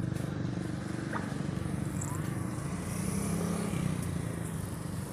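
Steady low drone of motor traffic, motorcycles and cars, running on the street.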